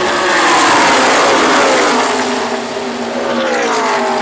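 A pack of NASCAR Truck Series race trucks' V8 engines passing at speed, the engine pitch falling as they go by, loudest about a second in. A second group passes near the end, again dropping in pitch.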